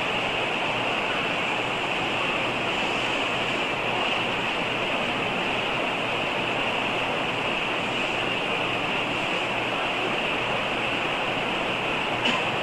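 Steady background hiss, even and unchanging, with a faint click near the end.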